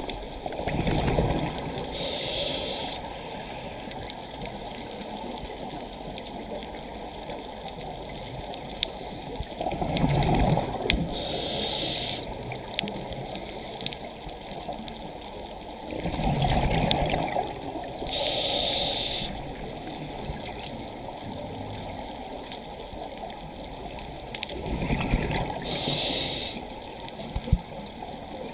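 Scuba diver breathing through a regulator underwater, four breaths about eight seconds apart: each is a low gurgling rush of exhaled bubbles followed by a short high hiss of inhalation from the regulator, over a steady wash of water noise.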